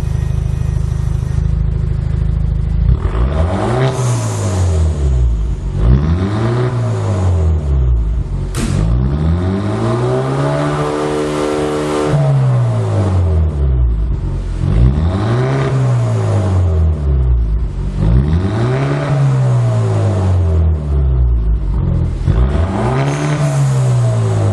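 Kia Stinger 2.0's turbocharged four-cylinder engine through a straight-pipe exhaust, idling and then revved six times, each rev rising and falling back to idle, the third held high for a couple of seconds. A single sharp crack is heard about eight seconds in.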